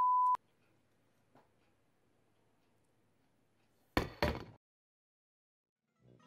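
A short, steady electronic beep, then faint room tone. About four seconds in, two sharp metallic clanks a third of a second apart, with a brief ring: an empty stainless steel mixing bowl knocked against a wooden table.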